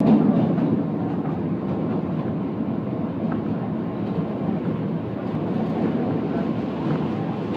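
New York City subway train running at speed, heard from inside the car: a steady rumble of wheels on rails, a little louder in the first moment.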